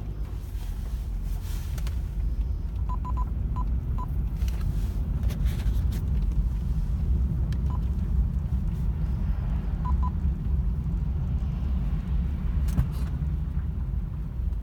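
Steady low rumble of a car's cabin, with short high beeps, some single and some in quick groups of two or three, and a few faint clicks. No music or other audio plays from the Eunavi Android head unit, the sound problem that follows its Bluetooth connection with an iPhone.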